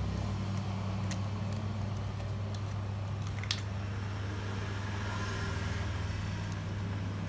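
Steady low background hum, with a few faint light clicks as a DDR3 laptop RAM module is handled and lined up with its slot.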